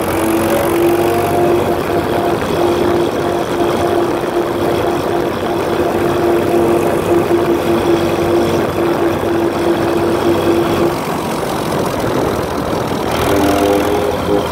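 Bolinder Munktell BM36 tractor's diesel engine running under way, on a test run after adjustment of its injection pump and injectors. A steady whine runs alongside the engine, drops out about eleven seconds in, and returns near the end.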